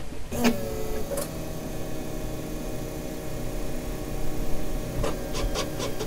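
Dodge Sprinter's ignition being switched on: a click, then a steady electric hum that holds without change, with several quick clicks near the end.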